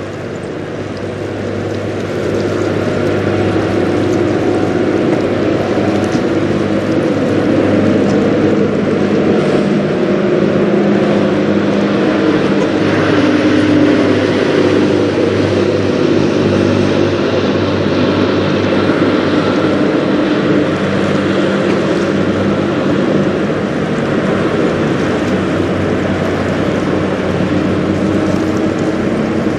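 Cargo ship's diesel engine droning with a steady low hum, swelling over the first few seconds as the ship draws closer and then holding, over a steady hiss of wind and water.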